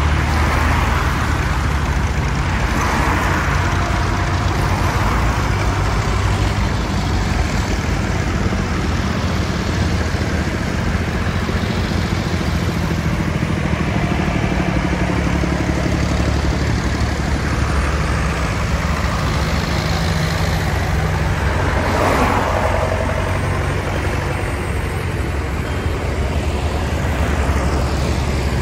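Farm tractors' diesel engines running as a line of them drives past one after another, with tyre hiss on a wet road. The sound swells briefly each time a tractor passes close.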